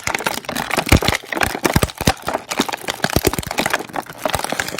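Stiff plastic toy packaging crackling and clicking in quick, irregular snaps as an action figure is pried and tugged out of its tray.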